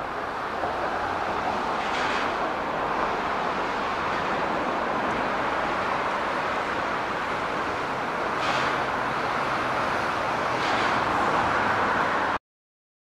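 Yard switcher running as it slowly moves a rake of 115-series railcars, a steady rumble of machinery and wheels on rails, with a few short faint squeaks. The sound cuts off abruptly near the end.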